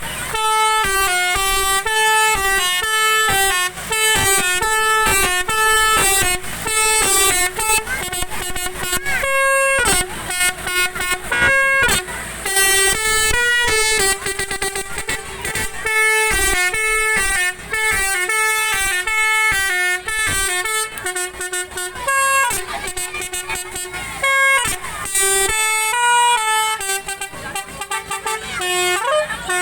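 Multi-tone 'telolet' horn on an odong-odong ride vehicle playing a tune. Short horn notes step up and down between a few pitches several times a second, with a few brief breaks, and a couple of rising glides near the end.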